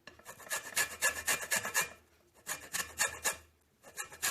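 Lemon rind being grated on a hand grater to take off the yellow zest. Quick rasping strokes come in three runs with short pauses between them, the last starting near the end.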